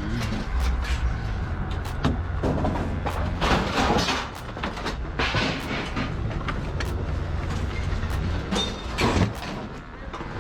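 A vehicle engine running with a steady low hum, with frequent short metallic clanks and rattles over it.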